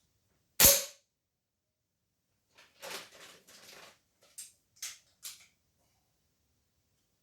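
A single sharp shot from a Weihrauch HW35 spring-piston air rifle, with a short ring after it. A couple of seconds later come quieter rustling and scraping, then three short clicks, as the gun is handled.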